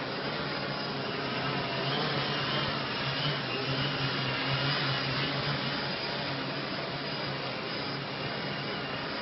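HeliMAX Form500 quadcopter hovering, its four motors and propellers giving a steady whir whose pitch wavers slightly.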